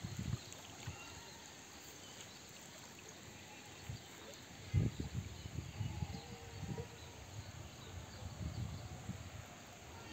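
Faint trickle of a shallow, rocky creek, under irregular low rumbles on the microphone and one sharper thump about halfway through.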